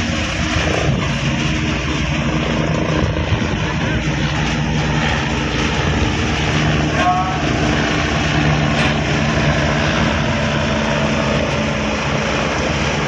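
Cargo ship's engine running steadily: a constant low hum with a broad rushing noise over it.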